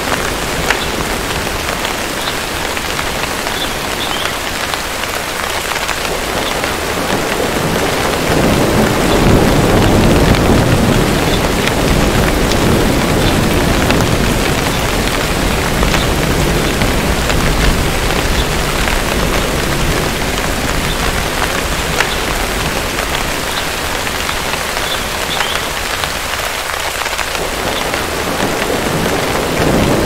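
Steady heavy rain pattering, with the deep rumble of distant thunder swelling up about a third of the way in, fading later, and building again near the end.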